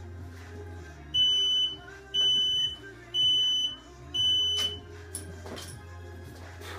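Four high electronic beeps, one a second, each about half a second long, from a gym workout timer counting down to the start of the workout. They play over background music with a steady bass, and a few sharp knocks come just after the last beep.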